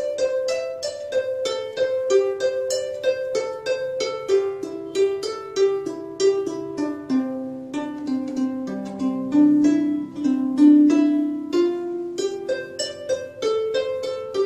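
Background music: a plucked string instrument playing a quick melody of short, evenly paced notes. The tune dips lower in the middle and climbs back near the end.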